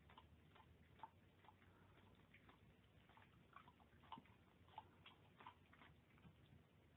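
Near silence: faint room tone with soft, irregular little clicks, about two a second.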